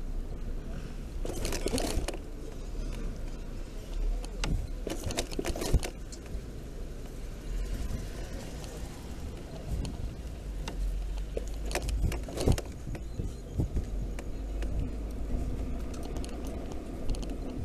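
Steady low wind and road rumble from riding a Bee U1 electric scooter, with scattered light rattles and clicks.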